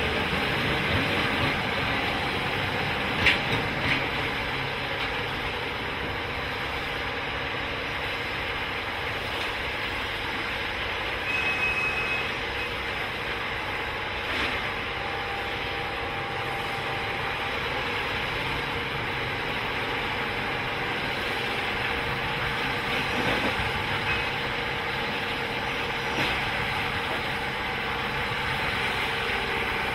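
Track-renewal train's machinery and engines running steadily, with a few sharp metallic knocks and one brief high-pitched tone.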